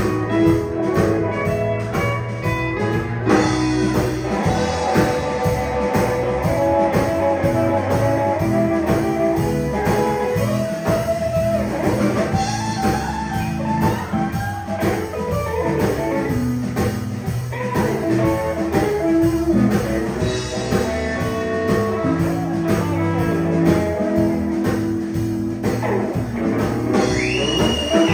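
Live country band playing, electric guitar out front over a steady drum beat, with little or no singing.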